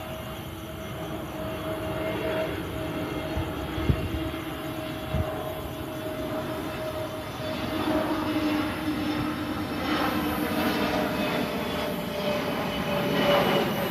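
Jet airliner's engines on approach: a steady whine over a rushing noise that grows louder. Two short thumps come about four and five seconds in.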